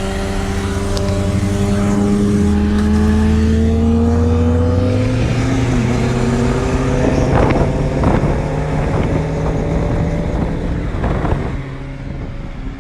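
Car engine pulling under way, its pitch climbing gradually and stepping up and down a couple of times as it accelerates through the gears.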